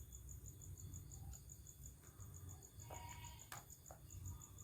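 Faint cricket chirping, a steady high pulse repeating about four times a second, with a couple of soft clicks about three seconds in.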